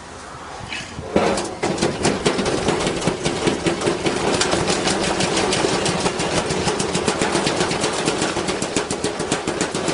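Washing machine spinning up about a second in with a heavy load in the drum, which bangs against the drum in rapid, repeated knocks, several a second, over the running machine.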